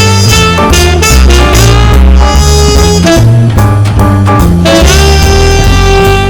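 Background music: an upbeat swing-jazz tune with horns, a walking bass and drums.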